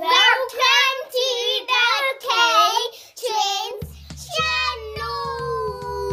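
A child singing a few short, high notes, then music comes in about four seconds in: a low steady drone with a light regular beat under one long held note that slides slowly downward.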